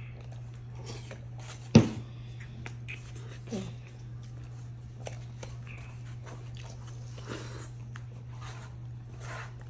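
Close-up eating sounds: a fork scraping and tapping on a plate of spaghetti, with chewing and mouth noises. A sharp knock about two seconds in is the loudest sound, with a smaller one a couple of seconds later, over a steady low hum.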